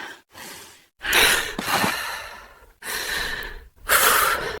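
A woman breathing hard in panic: about five loud, noisy breaths and gasps in a row.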